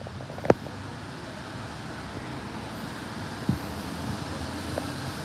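City street traffic noise, a steady low rumble of vehicles, with a sharp knock about half a second in and a duller thump about three and a half seconds in.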